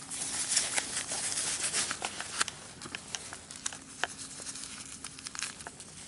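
Footsteps crunching over shells and stones on an exposed shore, a dense scatter of small sharp clicks and crackles. A faint low hum fades in and out twice.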